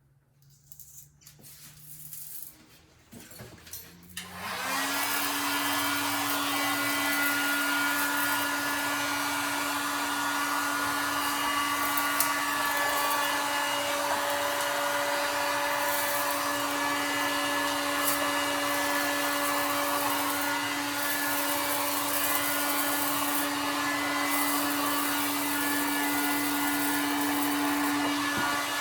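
A few light handling sounds, then about four seconds in a hot-air blower switches on, its motor whine rising briefly as it spins up, and runs steadily with a fan whir and rushing air.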